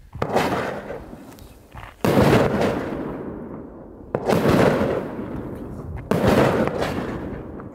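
blackboxx Präludium 13-shot F2 firework battery firing, four shots about two seconds apart. Each shot is a sharp bang that fades away over a second or so.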